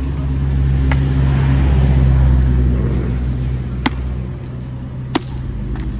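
A motor vehicle passing by close on the street, its engine rumble swelling and then fading away, with a few sharp knocks in between.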